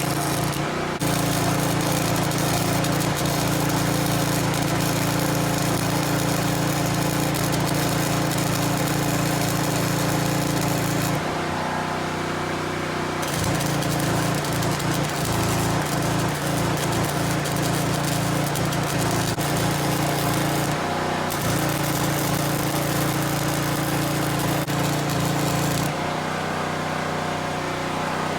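Welding arc crackling in three long runs of several seconds each, over the steady drone of a generator engine whose note shifts each time the arc stops and starts.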